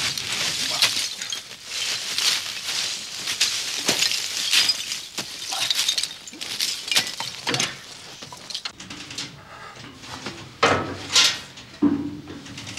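Loose coal pouring down in a rush, lumps clattering and rattling over one another, thinning out after about eight seconds into a few separate knocks and thuds near the end.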